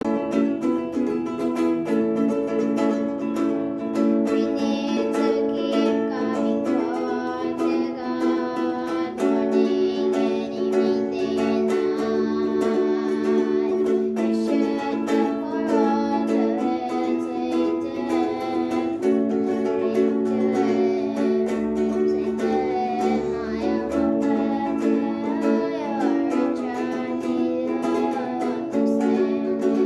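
A child singing a worship song while strumming chords on a ukulele; the voice comes in about four seconds in.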